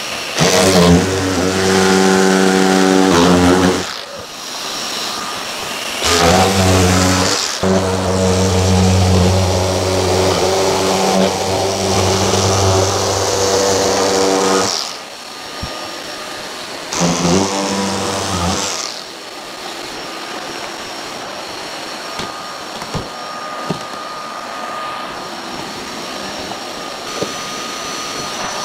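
Drywall cutter, set to a 10 mm blade depth, running in three spells as it cuts through ceiling drywall. A dust-extraction vacuum hooked to it runs steadily underneath and is left alone for the last several seconds.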